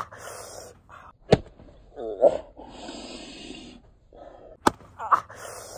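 A plastic sandal smacking down on a head, one sharp slap about a second in, with breathy laughing and gasps around it and another short sharp crack near the end.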